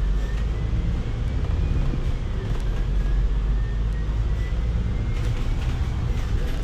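Heavy low rumble of a bus engine and road noise from inside a moving bus, with a thin high whine that slowly rises and falls in pitch.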